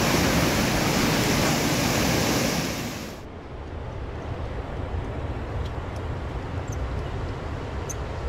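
Fast-flowing river rapids, a steady loud rush of water that fades out about three seconds in. After that comes a quieter low wind rumble with a few faint, short high chirps.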